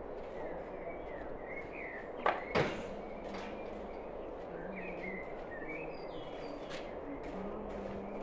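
Split firewood pieces knocking together twice in quick succession about two seconds in, over a steady outdoor background with small birds chirping now and then.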